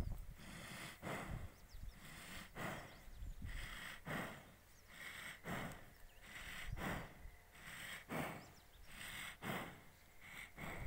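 Slow, regular breathing close to the microphone, one breath about every second and a half.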